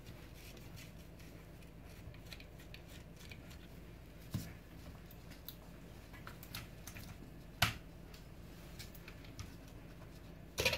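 Small clicks and taps of hands dismantling a plastic car front light unit: a screwdriver turning out its screws, then the small metal brackets and screws being handled. There are sharper clicks about four seconds in, at seven and a half seconds, and near the end, over a faint low hum.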